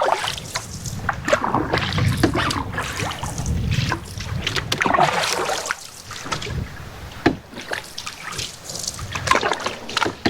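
Canoe paddling: irregular paddle strokes swishing and splashing in the water, with a single sharp knock about seven seconds in.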